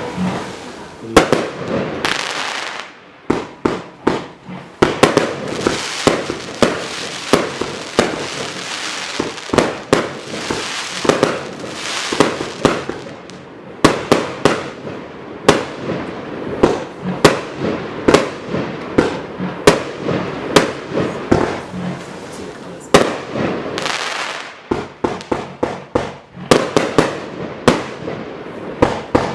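A 100-shot, 30 mm compound firework cake (Gemstone Fireworks' The Rage) firing. It gives a rapid run of sharp shots and bursts, two or three a second, with hiss between them and a few brief lulls.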